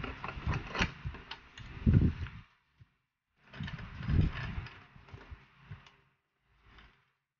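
Hands working a metal bolt, nuts and a light bracket on a scooter's plastic front fairing: a run of small clicks and rattles in two spells with a short pause between.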